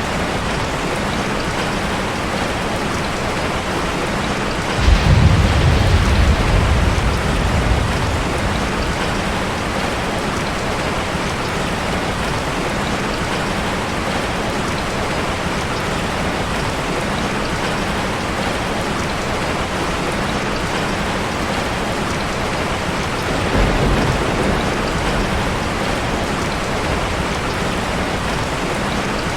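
Steady heavy rain falling, with two low rolls of thunder: a louder one about five seconds in that lasts about three seconds, and a weaker one near the end.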